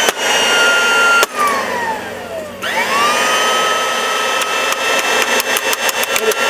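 Oreck upright vacuum cleaner motor running with a high whine; about a second in it cuts out and winds down in pitch, then is switched back on and spins up to speed again. Near the end a quick run of sharp clicks sounds over the running motor.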